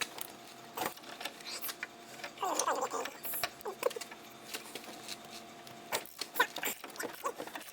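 Socket wrench and hand tools working on a rusty sway bar link nut: scattered metallic clicks and clinks, with a brief pitched sound about two and a half seconds in, over a faint steady hum.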